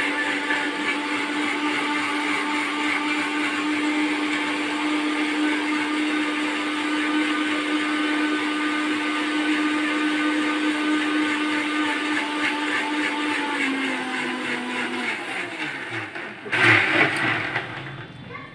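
Philips 750 W mixer grinder running steadily with its stainless-steel jar, blending fruit and water into juice. A little past thirteen seconds in the pitch drops and the motor winds down to a stop, followed by a brief loud clatter.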